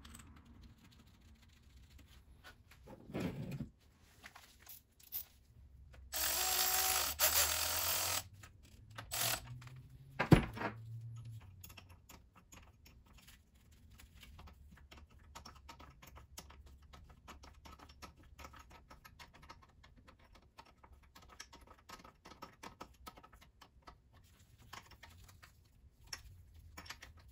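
Hand tools working the thermostat housing cover bolts on a Mercury 135 BlackMax V6 outboard's cylinder head, with many light scattered clicks. About six seconds in comes a loud burst of noise lasting about two seconds, followed a few seconds later by one sharp knock.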